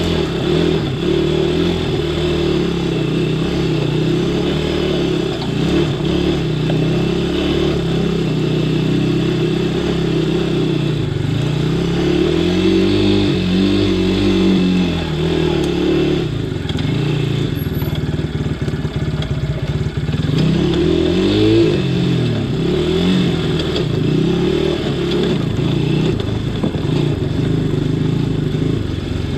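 ATV engine running under way, its pitch rising and falling with the throttle, with two clear swells of revving, one a little before halfway and another a few seconds later.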